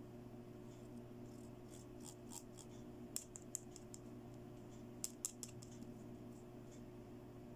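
A small pink plastic doll comb handled with long fingernails: soft scratching with a few sharp plastic clicks, a cluster about three seconds in and another about five seconds in, over a faint steady hum.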